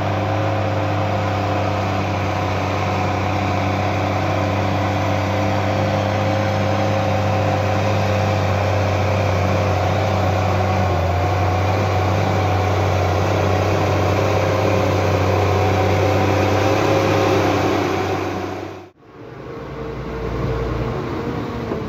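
HSM 904 skidder's diesel engine running steadily as the machine drives along the forest track, growing slightly louder as it nears. About nineteen seconds in the sound cuts off abruptly and comes back as a quieter, deeper engine rumble.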